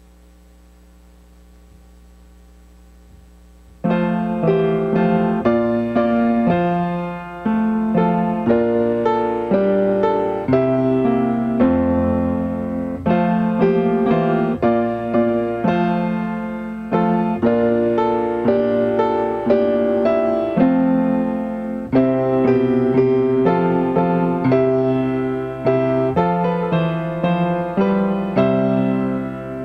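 A faint steady electrical hum, then about four seconds in a piano starts the closing postlude: a slow hymn-like piece of chords and a melody, each note struck and dying away.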